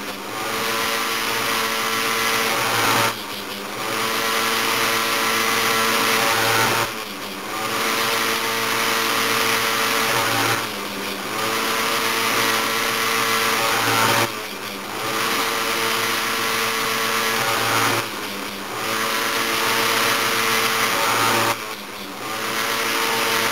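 Bench-mounted chainsaw chain grinder's electric motor running while grinding the depth gauges (rakers): a steady whine with a short dip in level about every four seconds.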